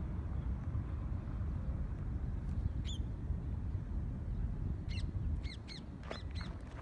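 Birds calling over a steady low rumble: one call about three seconds in, then a quick run of five or six short, arching calls near the end.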